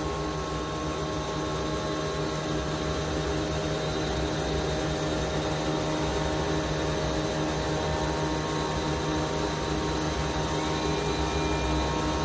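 Steady drone of factory machinery, with several steady hum tones, from an HDPE geomembrane production line running in a large hall. It grows slightly louder over the span.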